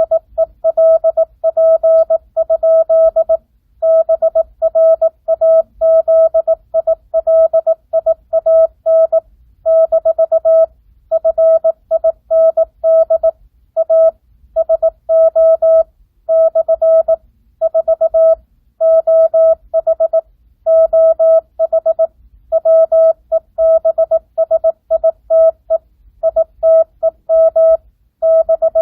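Morse code practice tone sending at 18 words per minute with no Farnsworth spacing. It is a single steady-pitched beep keyed on and off in dots and dashes, in groups broken by short pauses between words.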